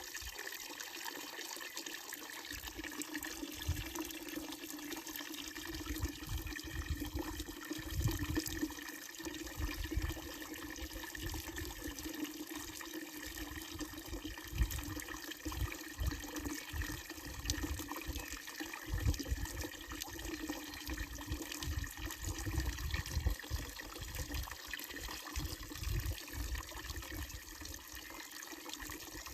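Water running steadily from a fountain's wooden trough spout and splashing into the basin below, a continuous trickling pour. An uneven low rumble comes and goes underneath.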